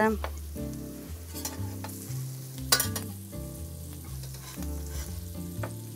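Chopped onion sizzling in a pan as a spoonful of flour is stirred in with a spatula to thicken the sauce. A few sharp scrapes of the spatula on the pan stand out, the loudest nearly three seconds in.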